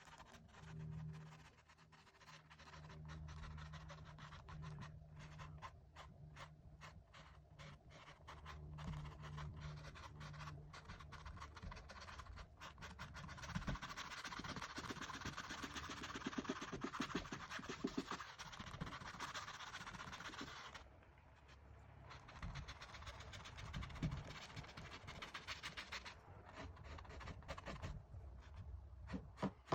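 Paintbrush scratching and dabbing on canvas in many quick, faint strokes, heaviest around the middle.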